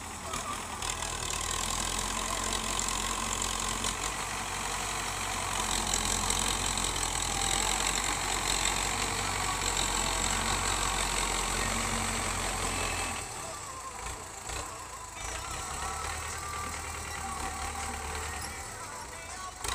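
Belarus tractor's diesel engine running steadily while its front blade pushes soil; the drone eases somewhat about two-thirds of the way through.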